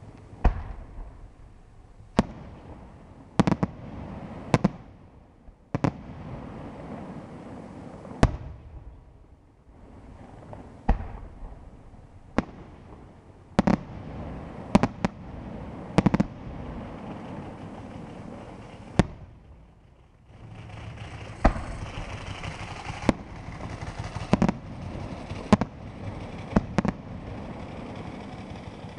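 Aerial firework shells bursting one after another, about twenty sharp bangs at irregular intervals over a rushing hiss. From about two-thirds of the way in the hiss grows denser and louder while the bangs go on.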